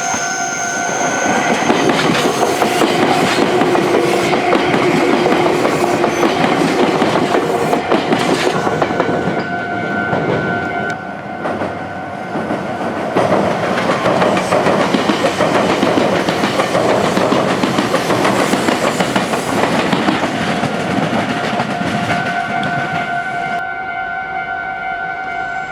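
Meitetsu electric trains passing the junction one after another, wheels clattering over the rail joints. There is a short lull about halfway. A level crossing's warning alarm rings steadily throughout and is heard plainly in the lull and near the end.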